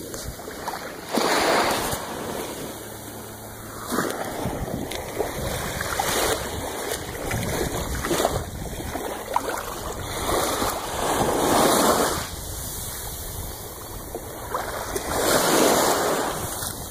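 Ocean surf washing up the sand at the water's edge, swelling and falling back every couple of seconds.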